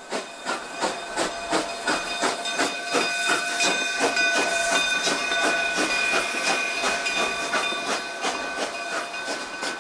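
A standing Cumbres & Toltec K-36 2-8-2 narrow-gauge steam locomotive hissing steam. A fast, even pulsing beat runs through the hiss, and steady high tones sound through most of it.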